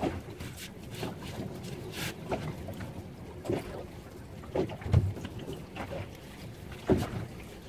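Choppy lagoon water slapping irregularly against the hull of a small boat, with wind buffeting the microphone.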